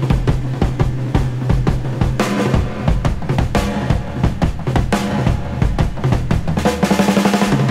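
Background music with a steady drum beat of kick and snare over a held bass line.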